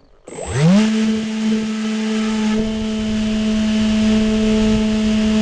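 EasyStar RC plane's electric motor and propeller spinning up quickly to a steady high hum, with air rushing over the microphone.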